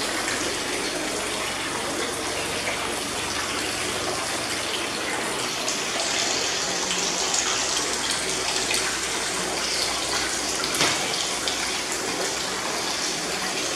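Sugarcane juice pouring and running in a steady stream into a trough.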